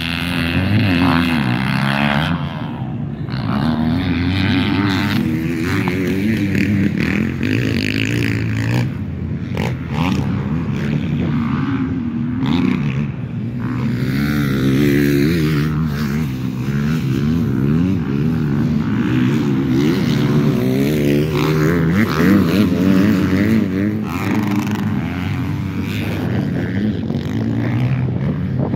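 Motocross dirt bike engines racing, revving up and down over and over as the riders work the throttle around the track.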